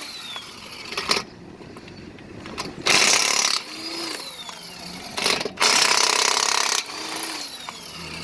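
Cordless impact wrench hammering at the lug nuts of a Mercedes-Benz Sprinter 2500 wheel in short bursts, four or so in all, the longest about a second, with pauses between: the nuts are stubborn to break loose.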